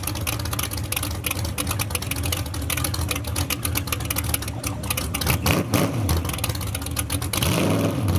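Engine idling steadily with a low hum, with two short rises and falls in pitch, about five and a half seconds in and near the end.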